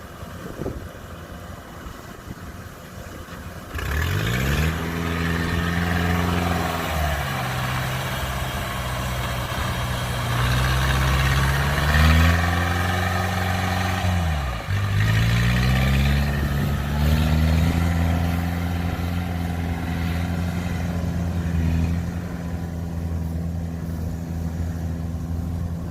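Combine harvester's diesel engine, quiet at first, then revving up sharply about four seconds in. It rises and falls a few times, dipping hard around the middle, then settles to a steady, loud high-rev run for the second half.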